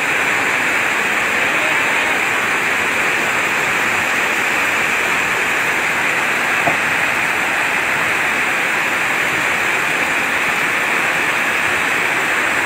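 Heavy downpour with fast-flowing floodwater across a road: a steady, dense hiss of rain and rushing water.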